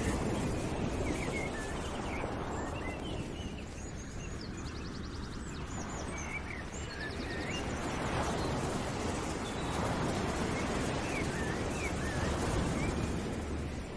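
Birds chirping, with a few quick high trills, over a steady rushing noise that eases a little partway through and then swells again: an outdoor nature ambience.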